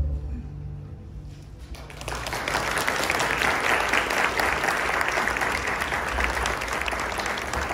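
A low held note dies away, then audience applause breaks out about two seconds in and carries on steadily.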